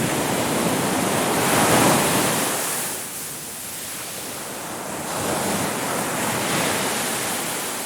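Sea waves washing onto a beach: surf noise swells to a peak about two seconds in, eases, and builds again near the end as the next wave breaks.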